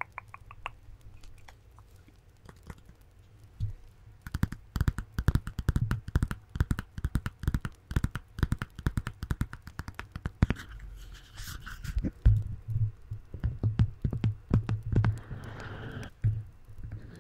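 Long fingernails tapping and scratching on a small paper notepad held close to the microphone, in quick runs of crisp taps. Heavier, deeper thuds join in during the second half.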